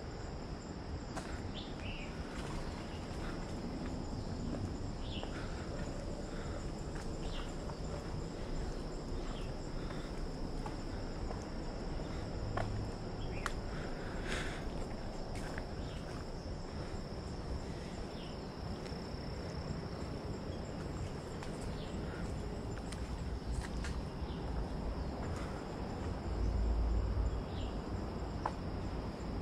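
Insects droning steadily at a high pitch, with short chirps scattered through and the walker's footsteps on the path. A brief low rumble comes near the end.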